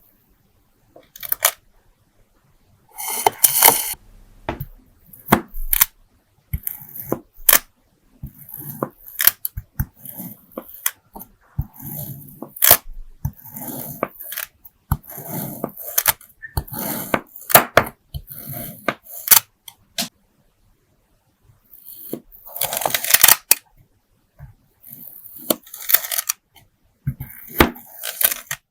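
Kinetic sand being squished and cut by hand: a run of crisp crunching crackles and sharp clicks in short bursts, with a brief pause about two-thirds through.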